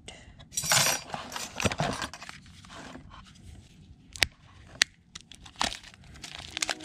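Irregular scraping and rustling of things being handled, with two sharp clicks about four and five seconds in.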